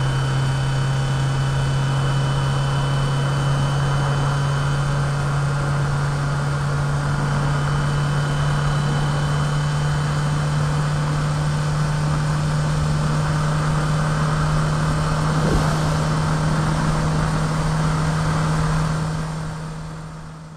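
Car engine and road noise: a steady low hum under a broad rushing hiss, fading out over the last couple of seconds.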